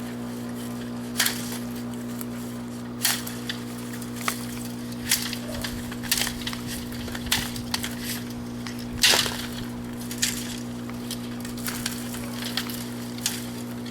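Woody cracks and snaps, one about every one to two seconds, the loudest about nine seconds in, as branches or sticks are broken. A steady low hum runs under them.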